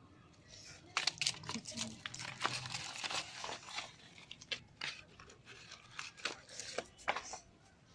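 Packaging being handled: crinkling, rustling wrappers, plastic or paper, in a run of sharp crackles that starts about a second in and dies away near the end.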